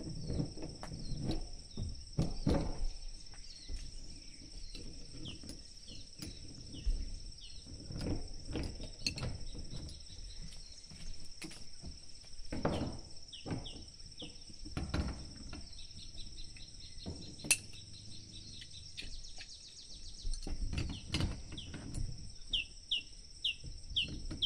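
Steady high-pitched insect drone of two constant tones, with bird chirps that come in quick runs of short falling notes near the end. Under it are irregular knocks and rustles of hands working on the water tank's fittings.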